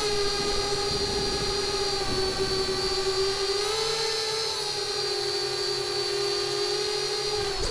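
Four EMAX RS2205 brushless motors spinning DAL 5045 tri-blade props on a QAV-R racing quad, picked up by its onboard camera: a steady high whine that rises and dips a little in pitch.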